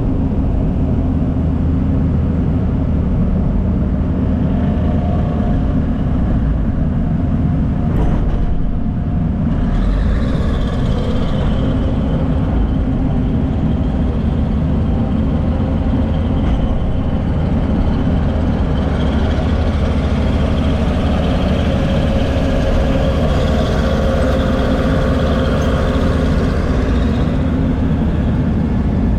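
Heavy diesel earthmoving machinery working, a crawler dozer and an excavator, with a loud, steady low engine rumble. A single knock comes about eight seconds in, and from about ten seconds in a faint, higher whine rides over the engines.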